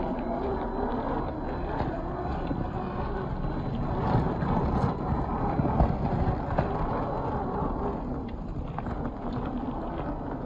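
1/10-scale RC crawler with a 540 brushed motor climbing over rock and loose gravel: the motor and drivetrain whirring under load, with tyres crunching and stones clicking, loudest as it works up the steepest part.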